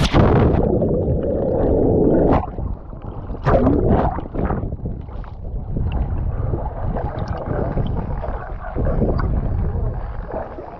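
Water splashing and gurgling close to the microphone, opening with one loud splash and followed by a few more sharp splashes a few seconds in.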